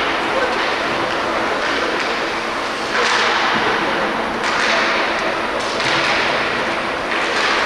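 Ice hockey skate blades carving and scraping the rink ice. Four scrapes with sudden starts come about a second and a half apart over a steady rink background.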